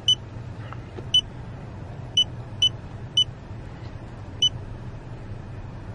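Handheld OS601 OBD-II scan tool beeping as its buttons are pressed to scroll through menus: six short high beeps at uneven intervals, over a low steady hum.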